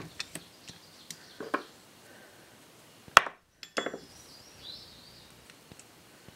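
Small metal hand tools clicking and clinking against a metal carburetor body and being set down on the workbench: a few separate sharp clicks, the loudest a little past halfway, then only faint handling noise.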